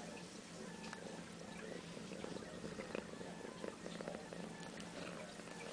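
Domestic cat purring steadily close to the microphone.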